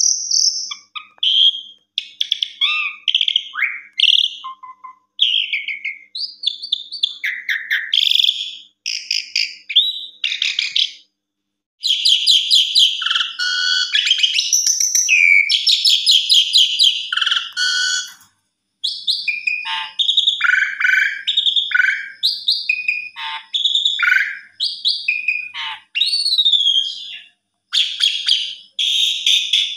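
An Asian pied starling (jalak suren) sings a long, varied song of clear whistles, sliding notes and rapid harsh rattles, with brief pauses between phrases.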